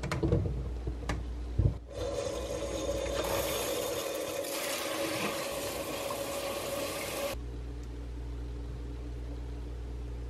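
Kitchen tap running water onto grapes in a plastic colander in a stainless steel sink, for about five seconds, then shut off suddenly. Before the water comes on there are a few knocks as the grapes are handled and set in the colander.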